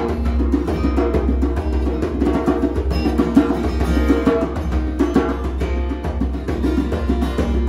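Acoustic guitar and a djembe played by hand, performing live together, the drum's strikes keeping a steady rhythm under the guitar.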